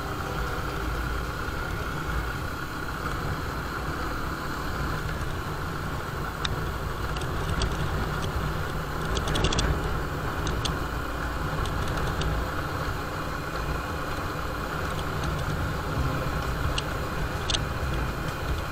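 Bajaj Discover motorcycle's single-cylinder engine running steadily at road speed, mixed with wind and road noise on a helmet-mounted microphone, with a few light clicks.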